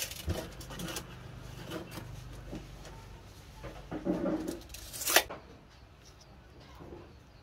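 Hands handling a PVC pipe and a tape measure: scattered light knocks, scrapes and rustles, with one sharp clack about five seconds in.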